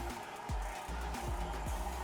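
Background music with a beat of deep drum hits over a steady bass line.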